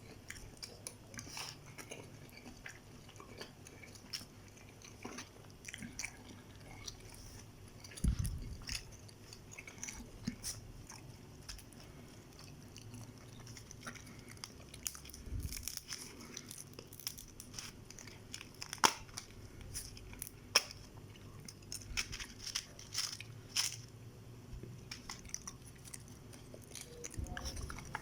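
Close-miked chewing and mouth sounds of a person eating egg noodles with pulled chicken in tom yum sauce, with many scattered sharp wet clicks. A couple of low knocks come about 8 and 15 seconds in.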